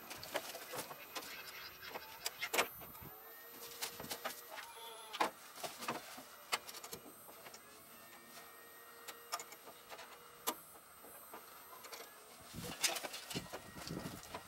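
Scattered clicks and knocks, with a denser cluster near the end, from an old tractor's seat, controls and starter being worked while someone climbs on and off. The engine never cranks or runs: the battery is dead and won't hold a charge.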